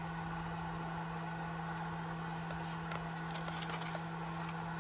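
Steady low background hum with a few faint ticks.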